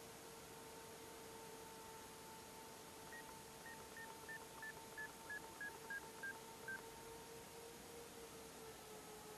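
A run of about eleven short electronic beeps from an EdgeTX RC radio transmitter, about three a second, each a step lower in pitch than the last. Underneath is a faint steady hum.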